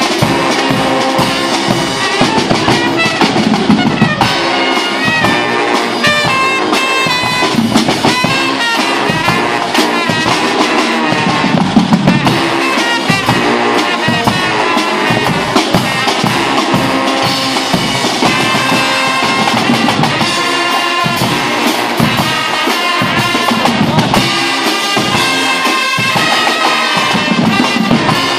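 Guggenmusik brass band playing loudly: trumpets, trombones and sousaphones over large bass drums, crash cymbals and a drum kit, with a steady driving beat.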